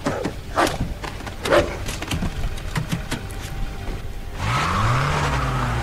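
Film soundtrack: a few sharp impacts, then a car engine revving up and accelerating from about four and a half seconds in, its pitch rising.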